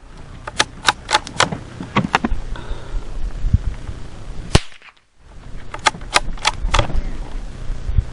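A single shot from a Marlin XT-22TR .22 LR bolt-action rifle about halfway through, sharp and loud. Several lighter metallic clicks come before and after it, typical of the bolt being worked.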